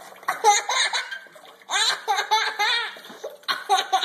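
A person laughing and giggling in three spells, over water from a running tap splashing into a stainless steel sink.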